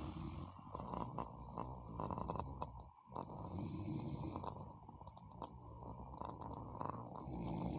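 A person snoring in long, drawn-out breaths that pause briefly about three seconds in and then start again.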